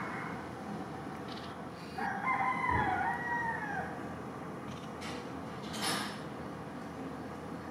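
A rooster crowing once, starting about two seconds in and lasting just under two seconds, its pitch dropping at the end.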